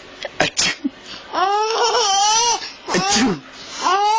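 A baby laughing at a person's sneezes, in long, high-pitched, wavering peals: one in the middle and another starting near the end. A few short, sharp breathy sounds come about half a second in.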